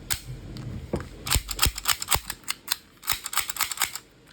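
Parts of a toy pistol clicking and snapping as they are fitted together, a run of sharp clicks in two quick clusters.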